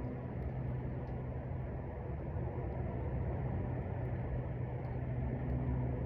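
Steady low outdoor rumble with a low hum that fades about a second in and comes back about four seconds in.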